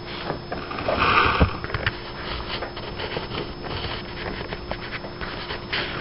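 Hurricane wind and rain: a steady rushing hiss with scattered taps and crackles, surging louder about a second in.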